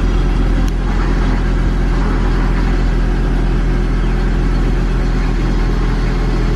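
VW van's engine running steadily just after an oil, oil-filter and air-filter change, the fresh oil circulating through the new filter. Heard from inside the cab.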